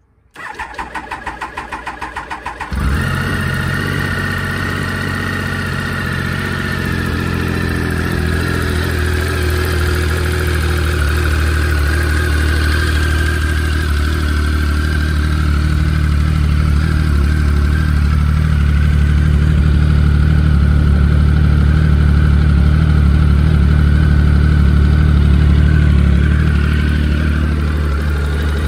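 2007 Triumph Sprint ST 1050's inline-three engine through its standard triple-outlet under-seat exhaust. The starter cranks for about two and a half seconds, then the engine catches and settles into a steady idle that grows slightly louder.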